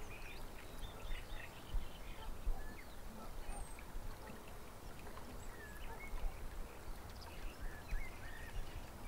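Outdoor ambience: scattered short bird chirps and calls over a low, gusting rumble of wind on the microphone.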